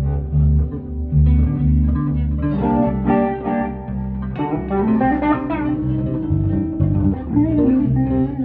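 Band playing the instrumental intro of a pop-rock song: an electric guitar plays sustained melody notes over an electric bass line.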